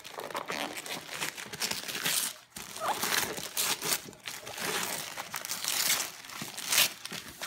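Gift wrapping paper being torn off a box by hand and crumpled, in a series of rips and crinkles.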